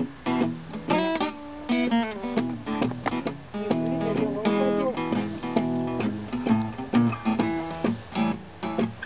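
Acoustic cutaway guitar strummed in a steady rhythm, chords ringing between evenly spaced strokes.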